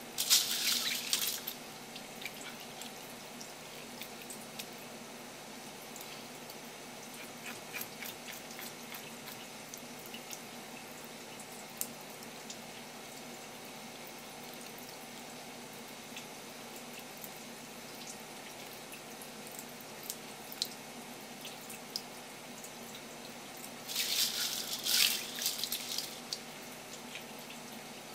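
Kitchen tap water running in two short bursts, one at the start and a longer one near the end, with scattered small drips and clicks in between.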